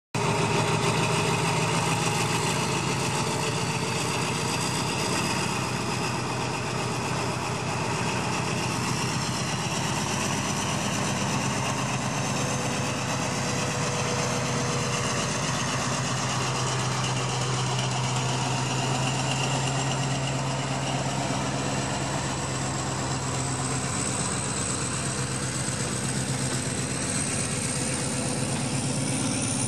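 SRT 4200 series (Alsthom AD24C) diesel-electric locomotive running at low speed while hauling a sleeper trainset, a steady low engine drone with a thin high whine that climbs slowly in pitch.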